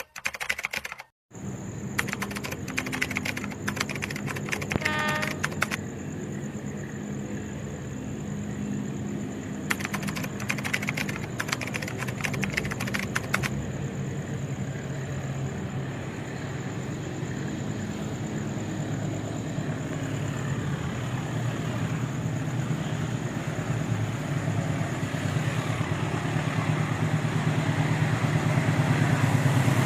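Diesel locomotive engine running and growing steadily louder as it approaches, with two stretches of rapid clicking along the way.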